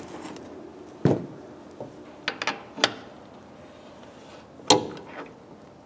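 Sharp metallic clicks and clinks of hand tools: pliers padded with a shop rag grip a small fitting on a window pane while a wrench turns it. About half a dozen separate clicks, the loudest about three-quarters of the way through.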